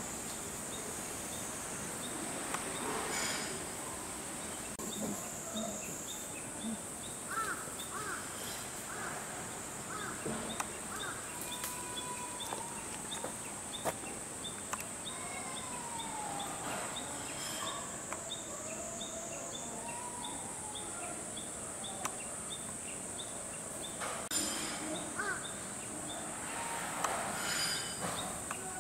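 Outdoor summer ambience: a steady high-pitched insect drone, with a regular ticking chirp of about three or four a second beneath it. Scattered short calls and faint distant voices come and go over it.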